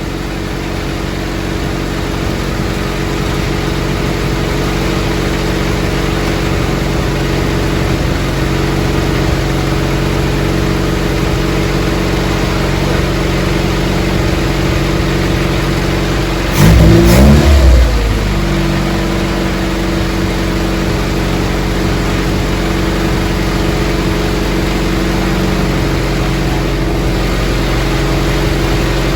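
Freshly rebuilt Nissan Micra stock-car engine idling steadily on its first start, blipped once about 17 seconds in, its revs rising and falling back within a second. It is not yet tuned.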